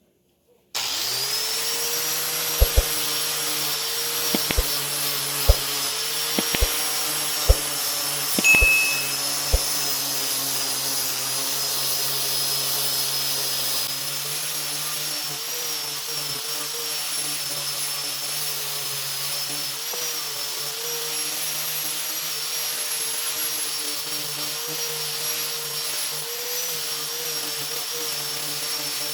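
An electric motor, from a power tool or a shop vacuum, switches on just under a second in and runs steadily with a high whine over a low hum. Several sharp knocks sound over it in the first ten seconds.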